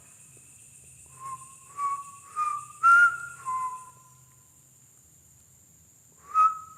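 A person whistling a short run of about five notes that step up in pitch and then drop, followed by one more note near the end, over a faint steady high-pitched whine.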